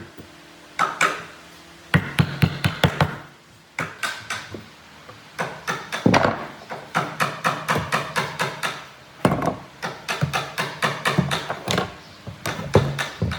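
Runs of quick hammer blows on wood, about four or five strikes a second, with short pauses between the runs.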